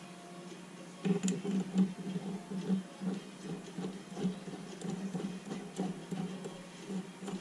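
Music from a background radio, with light metallic clicks and taps from steel spindle parts handled and fitted together. The parts noise gets louder about a second in.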